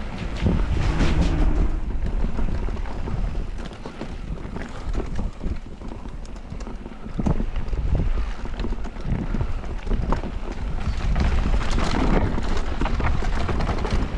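Wind buffeting the microphone as a mountain bike rides fast downhill, with the tyres rumbling over dirt and the bike rattling and knocking over rough ground.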